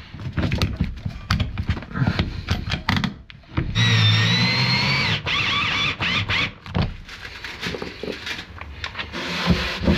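A Ryobi cordless drill/driver runs steadily for about a second and a half, near the middle, then more unevenly for another second. Clicks and knocks of tools and parts being handled are heard around it.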